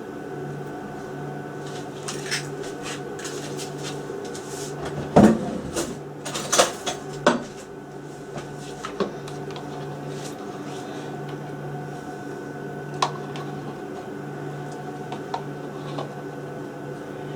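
Eggs being cracked and separated by hand: a few sharp knocks and clinks of eggshell against a bowl, the loudest about five seconds in and several more a second or two later. A steady low hum runs underneath.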